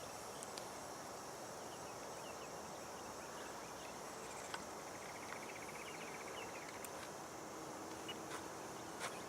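Insects chirping steadily in a field, with a rapid trill about halfway through and a few light ticks. A faint low hum comes in near the end.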